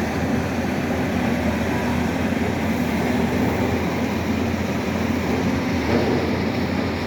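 Heavy machinery engine, likely a piling drilling rig's, running steadily with a constant low hum.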